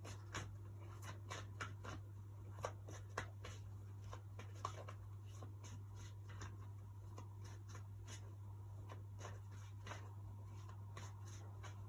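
A deck of oracle cards being shuffled and handled, giving soft, irregular card flicks and clicks over a steady low electrical hum.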